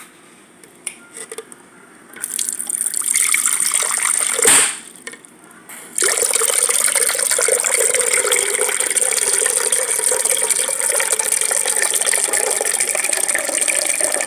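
Filtered water pouring from a water-filter pitcher into a blender jar. There is a first short pour with a knock in it, then after a brief pause a long steady pour.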